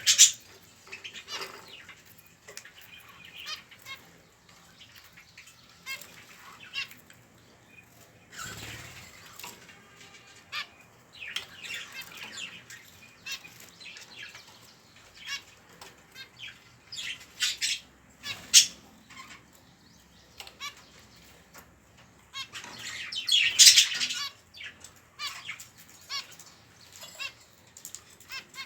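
Budgerigar chicks calling in short raspy bursts, the squawking begging of chicks being fed, coming in clusters with quiet gaps and loudest about two thirds of the way through.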